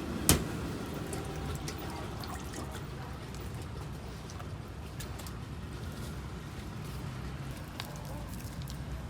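Street-food kitchen sounds: a sharp clack about a third of a second in, then liquid being poured or ladled over a steady low background noise, with faint scattered clinks.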